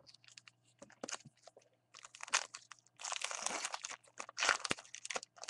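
Crinkly wrapper of a baseball card pack being torn open and crumpled. It starts with faint scattered clicks, then comes in several crackly bursts from about two seconds in.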